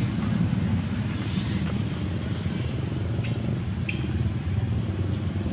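A steady low rumble, with a few faint clicks and a brief high hiss about a second in.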